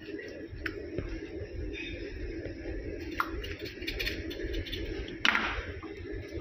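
Kitchen knife cutting and scraping raw chicken on a plastic cutting board while the meat is deboned: a few light clicks and one brief, louder scrape a little after five seconds in, over a steady low room hum.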